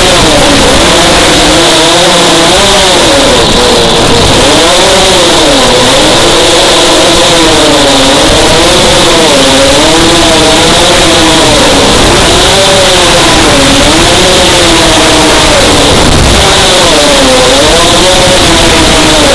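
FPV racing quadcopter's motors and propellers whining, the pitch swooping up and down again and again as the throttle is worked around the circuit.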